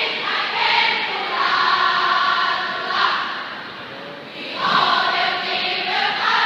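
A large group of voices singing a cheer song in unison: a student cheering section. The singing fades about three seconds in and comes back strongly about a second and a half later.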